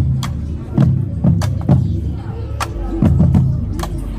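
Marching band percussion playing: deep drum hits roughly twice a second with sharp stick clicks between them.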